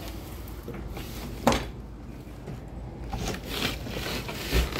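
Wooden shed doors being swung shut: a sharp knock about a second and a half in, then scraping and rattling of the boards and latch, and a low thump near the end.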